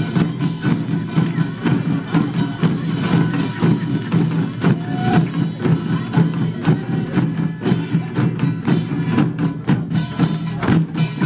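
Korean pungmul percussion band playing: a steady, driving rhythm of many quick strokes on small gongs and drums.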